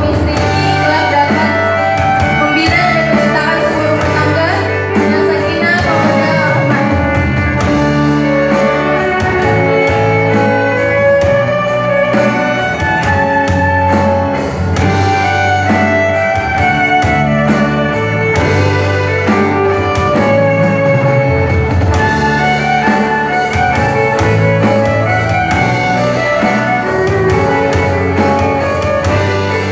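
Live band music: a woman singing into a microphone over acoustic guitar, electric bass and drums, with a violin playing along. The music runs on steadily without a break.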